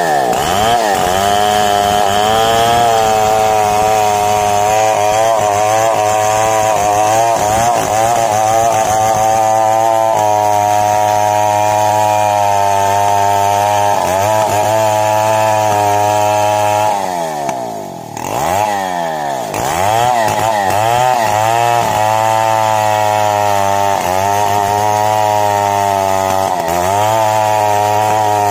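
Two-stroke chainsaw running at high revs, its bar buried in the trunk of a large mahogany tree, the engine pitch wavering as the chain bites into the wood. About two-thirds of the way through the engine drops briefly toward idle, then revs back up and keeps cutting.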